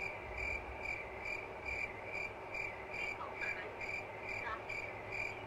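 A high electronic beep repeating evenly about twice a second over a phone line, the tone of a call waiting on hold before another agent comes on.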